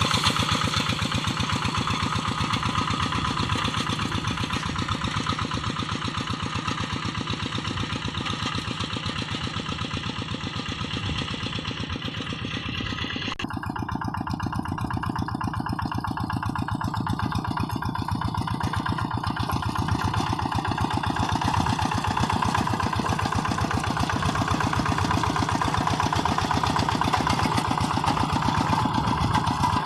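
Single-cylinder Kubota diesel engine of a Quick G1000 hand tractor running steadily while plowing a rice paddy. Its sound changes abruptly about 13 seconds in.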